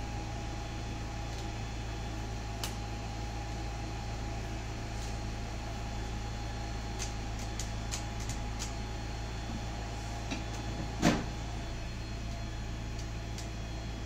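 Steady low electrical hum, with scattered small plastic clicks from about seven seconds in and one sharp knock a little after eleven seconds, as a hot-air brush and multimeter test probes are handled.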